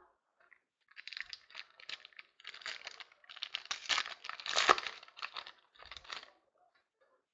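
Plastic card-pack wrapping crinkling and tearing as it is handled during a trading card break, a run of crackles with the loudest tear a little past the middle.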